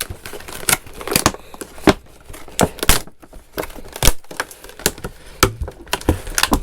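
Retail packaging being handled and opened by hand: a string of irregular sharp clicks, taps and crinkles.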